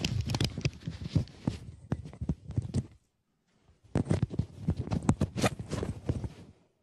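Handling noise from a clip-on lavalier microphone being fitted to clothing: close rubbing and knocking against the mic. The sound cuts out completely for about half a second near the middle, then the rubbing and knocks resume.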